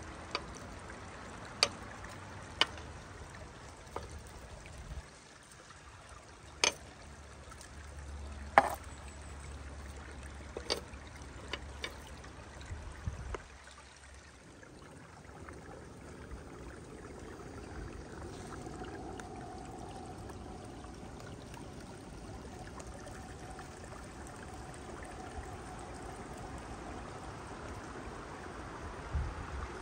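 Metal tongs clicking sharply against a grill pan about ten times in the first half, over a steady watery hiss.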